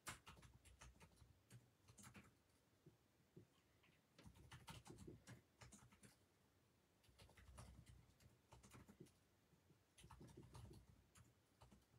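Faint clicks, taps and rustling of small objects being handled, coming in several short spells.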